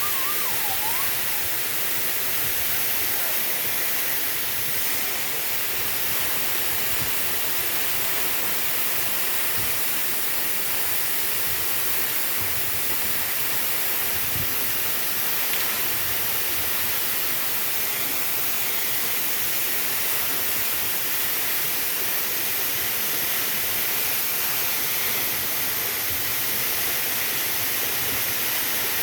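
Waterfall rushing steadily: a constant, even hiss of falling water.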